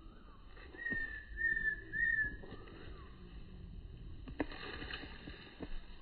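Three short, clear whistled notes, each falling slightly in pitch, a little under a second in, with a fainter gliding note just before and after. A single sharp knock comes about four and a half seconds in.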